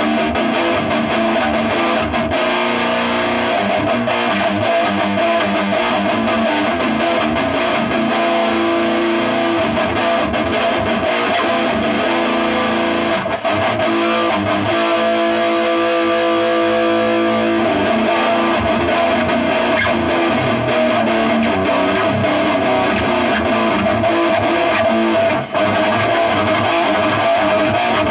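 Electric guitar played through a Blue Voodoo amp and its 2x12 cab loaded with Eminence speakers, chords and riffs strummed and picked continuously over the old amp's loud background hiss.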